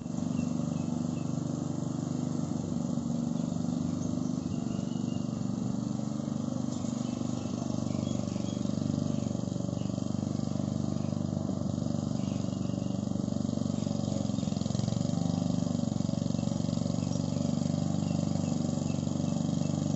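Petrol lawn mower's small engine running steadily under load as it cuts grass.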